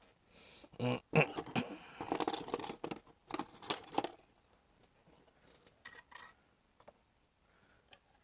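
Small hard objects being handled and set down on a jeweler's workbench: a quick run of clicks, clinks and rustles in the first four seconds, then only a few faint clicks.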